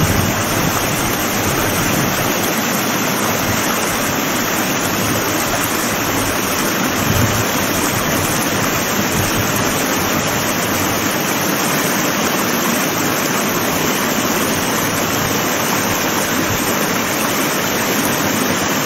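Steady rush of a small mountain waterfall pouring over a rock ledge into a stony stream bed.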